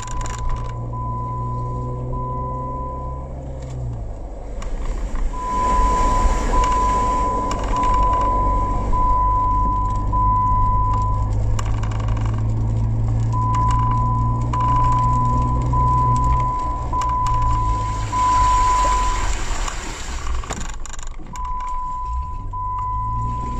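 Car engine running, heard from inside the cabin while driving on a wet road, with road noise and an engine note that shifts a few times. Over it a dashboard warning chime beeps about once a second in spells, stopping for a couple of seconds about three, eleven and nineteen seconds in.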